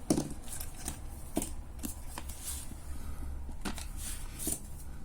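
Irregular clicks and knocks of a vacuum cleaner's plastic cord-reel drum being handled and taken apart by hand, with the sharpest knock right at the start.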